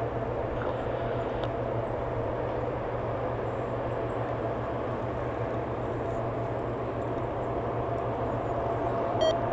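Steady machine drone with a constant mid-pitched hum, from power equipment running at a parked Lockheed C-130H Hercules whose propellers stand still.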